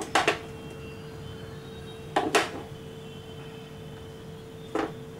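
Steady low hum with a single faint tone, broken by short sharp knocks: two close together at the start, two a little after two seconds in, and one near the end.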